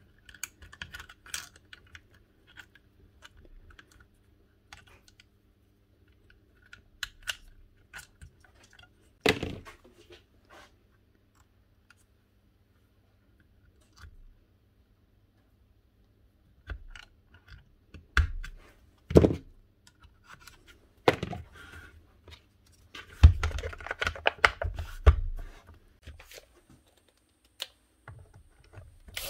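Irregular small clicks, taps and knocks of a Makita HR0870C hammer being put back together by hand, its housing parts and components handled and fitted, with a few louder knocks about nine and nineteen seconds in and a busier run of knocks a little after twenty seconds.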